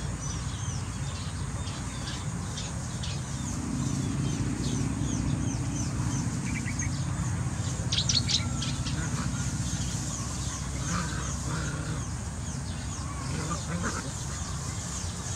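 Small birds chirping repeatedly in quick, high, falling notes, with a brief denser flurry about eight seconds in, over a steady low rumble.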